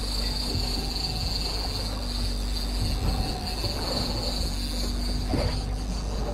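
Boat motor running steadily at trolling speed: a low rumble with a steady high-pitched whine over it.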